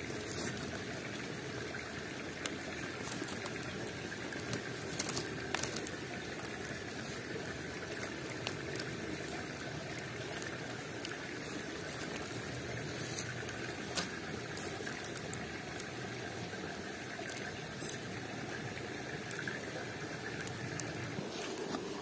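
Waterfall water rushing steadily, with a few brief sharp clicks scattered through it.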